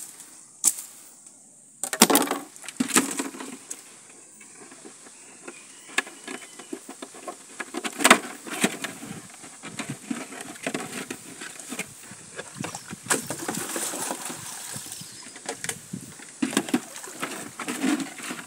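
Handling noise of a homemade shrimp trap, a plastic jug with a wire-mesh end, being lifted into a canoe and knocked and scraped against its hull: scattered clicks and rattles, with two sharp knocks about two and eight seconds in.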